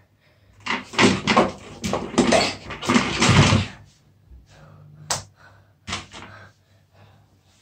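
A desk chair being knocked about as a person throws himself onto it and kicks his legs: a run of thumps, knocks and rustling for about three seconds, then two sharp knocks a little later.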